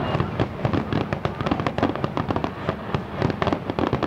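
Fireworks display: a rapid, dense barrage of bangs and crackles from many aerial shells bursting close together, with no let-up.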